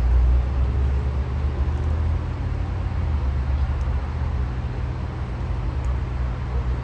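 Road traffic on a parkway: a steady low rumble of passing vehicles, heaviest in the first couple of seconds.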